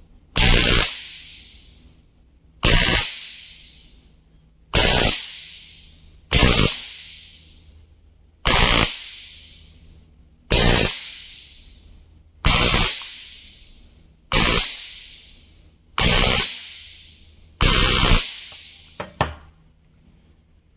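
Electric taser (stun gun) zapping in short bursts: about ten sharp-onset electric zaps, each lasting around half a second and tailing off, repeated roughly every two seconds. A couple of faint clicks follow near the end.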